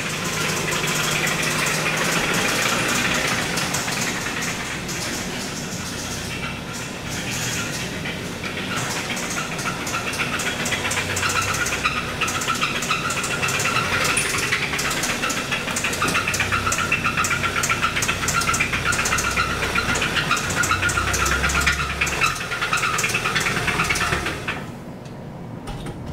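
2015 Kia Sorento's 2.4-litre four-cylinder direct-injection engine running with a rapid knocking, the sign of a bad rod knock in the failed engine. The sound drops away near the end.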